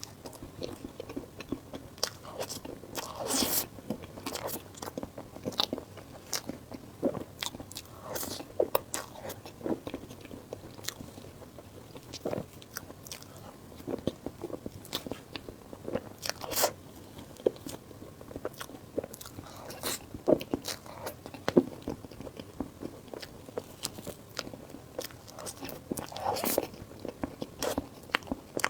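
Close-miked eating: a person biting and chewing food, with frequent irregular crunchy clicks and crackles.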